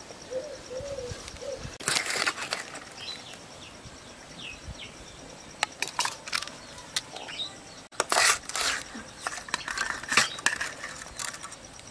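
Steel ladle clinking and scraping against stainless steel plates and bowls in several short clatters as rice and fish curry are served. A bird coos softly in the first second, and faint bird chirps come in the middle.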